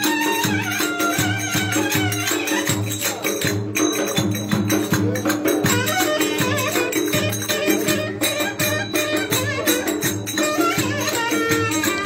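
Davul and clarinet playing Turkish folk dance music: regular strokes of the big double-headed drum under a winding clarinet melody.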